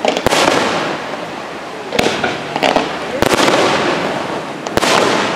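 Aerial fireworks display: shells bursting in a series of sharp bangs, each followed by crackling and a trailing echo. There are about five loud bangs: two close together at the start, one about two seconds in, one a little over three seconds in and one near the end.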